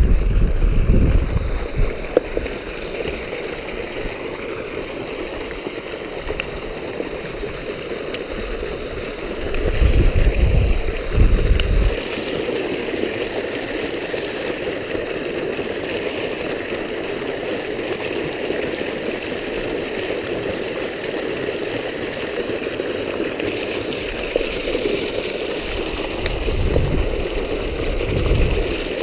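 Water gushing from an outfall pipe and splashing into a canal, a steady rushing and gurgling. Low rumbles come and go at the start, about ten seconds in and again near the end.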